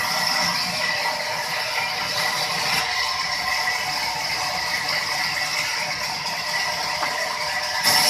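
Large vertical band saw in a sawmill running as timber is pushed through it: a steady mechanical noise with a high whine. It gets suddenly louder just before the end.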